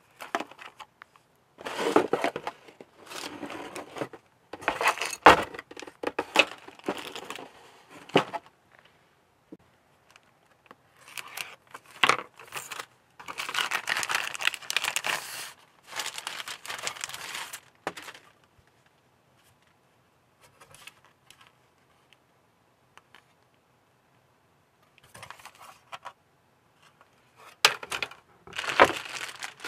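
Clear plastic bags crinkling and rustling as plastic model-kit parts inside them are handled, with a few sharp clicks. The rustling comes in bursts, falls mostly quiet for several seconds in the second half, and starts again near the end.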